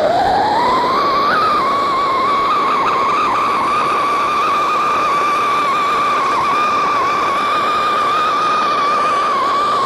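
Cock brand siren firework whistling as it burns: a shrill tone that rises over the first second, then holds steady and loud over a rushing hiss.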